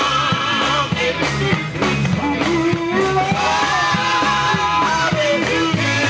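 Live gospel band playing with a steady drum beat, a bass line and a gliding melody line over them.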